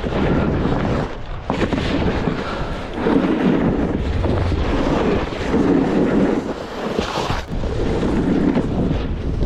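Wind buffeting the microphone in loud, uneven gusts and rumbles, over the rushing slide of skis or a board on snow during a run down a ski slope.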